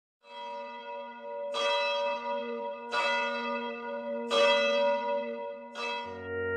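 A church bell tolling, five strikes about a second and a half apart, each left ringing on. Near the end a keyboard music track comes in.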